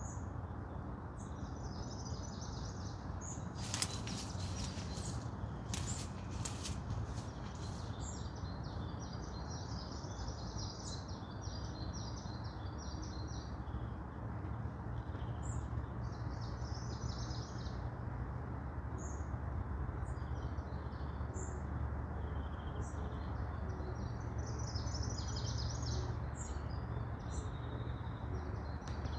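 Forest ambience: small songbirds singing in short, repeated trilling phrases over a steady low rumble, with a few sharp clicks between about four and seven seconds in.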